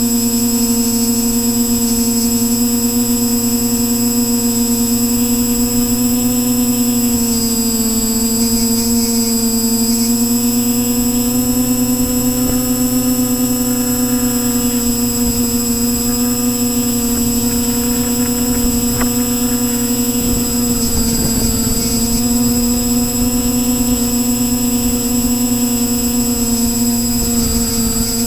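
Quadcopter's electric motors and propellers whining steadily, heard from the camera on board, over a rush of wind. The pitch sags and rises a little a few times.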